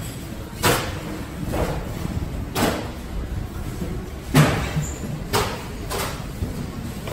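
Market-hall background: a steady low rumble with a string of sharp knocks and clatters, about one a second and irregularly spaced, the loudest about four seconds in.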